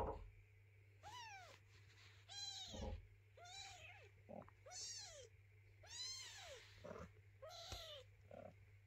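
A young kitten meowing repeatedly, about six high, thin calls that each rise and fall in pitch, the crying of a hungry kitten. A soft knock sounds right at the start.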